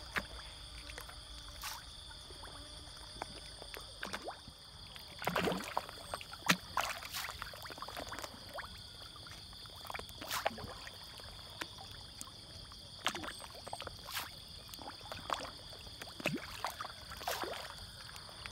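Fish feeding at the surface of a pond, with irregular splashes and gulps every second or two. Behind them runs a steady high chorus of insects.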